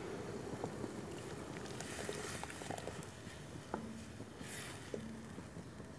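Tomato sauce in a pot on the stove, simmering faintly, with a few light clicks and soft hisses.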